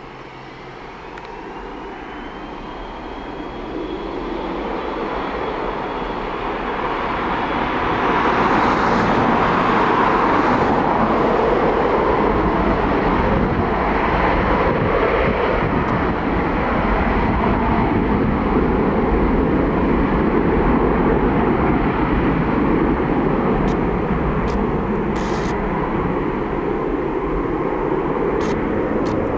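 Boeing 727's three rear-mounted Pratt & Whitney JT8D turbofan engines spooling up to takeoff power, with a whine that rises in pitch over the first few seconds as the noise grows louder. It then holds loud and steady as the jet makes its takeoff roll.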